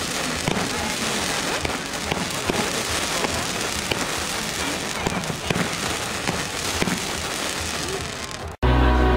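Fireworks crackling, a steady spray of many small pops and fizzing from rising sparkling trails. About eight and a half seconds in it cuts off abruptly and music starts.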